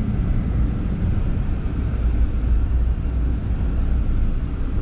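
Car driving on a paved road, heard from inside the cabin: a steady low rumble of engine and tyre noise.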